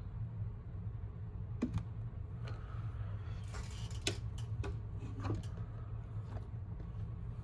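Small hard clicks and taps, irregular and a second or so apart, with a short scraping hiss about halfway through, over a steady low electrical hum.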